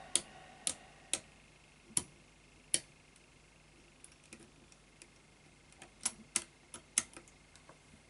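Sharp metallic clicks from the buttons of a push-button combination padlock being pressed and worked under tension while decoding it: single clicks spaced out in the first few seconds, then a quicker run of clicks near the end.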